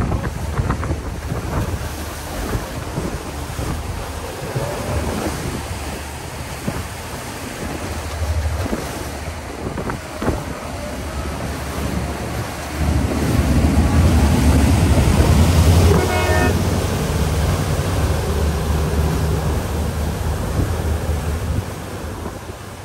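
Wind buffeting the microphone over rushing water and the low rumble of the pilot boat's engine, which grows louder a little past halfway as the boat powers away through its wake. A brief horn toot sounds about two-thirds of the way through.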